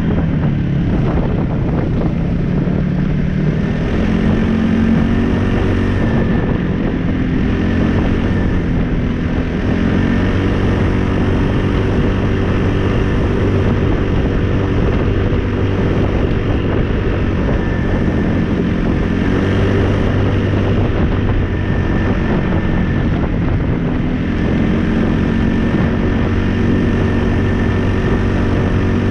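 Polaris ACE 570 SP's single-cylinder engine running while the machine is driven, its pitch rising and falling a little with the throttle.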